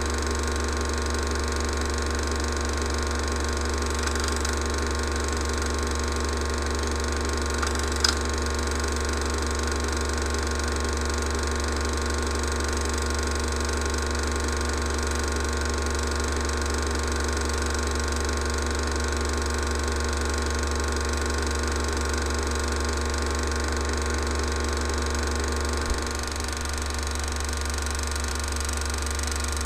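Steady mechanical whir and hum of a film projector running, typical of a silent 16mm cine film transferred with the projector's own noise as its only sound. A sharp click about eight seconds in and another near the end.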